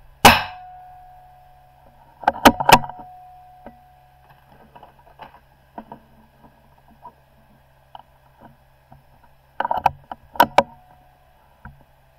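.22 rimfire benchrest rifle firing a single shot just after the start, with a short echoing tail. About two seconds later and again near the end, the bolt is worked with quick runs of sharp metallic clacks, with light clicks in between.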